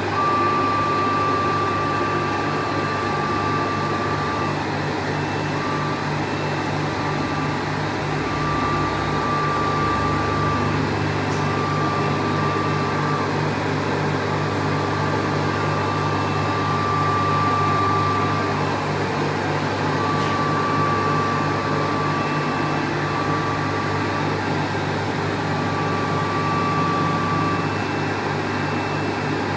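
CNC router running while it cuts a sign board: a steady mechanical hum with a thin high whine that keeps breaking off and starting again every second or few as the machine works.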